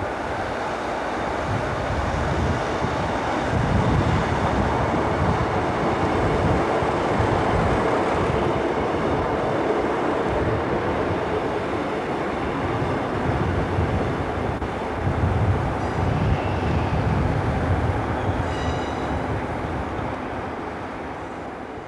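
British Rail Class 150 Sprinter diesel multiple unit running past at close range: its underfloor diesel engine and wheels rumbling on the track, growing louder a few seconds in and fading near the end. A brief high squeal near the end.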